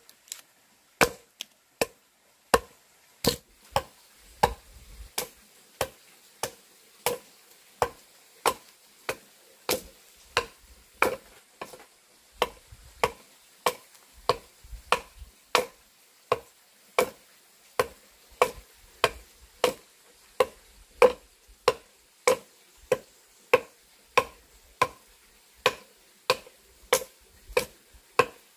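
Axe chopping into a peeled log, a steady run of sharp strikes somewhat under two a second, hewing the log's face flat.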